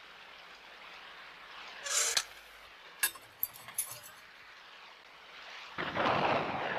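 Cartoon sound effects over a low hiss: a short rustle about two seconds in, a few sharp clicks a little after, then a rushing noise that swells near the end.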